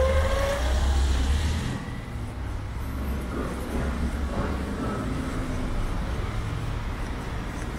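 Street traffic: a vehicle passes close by with a low engine rumble and a short rising whine at the start. After about two seconds it eases into a steady traffic hum.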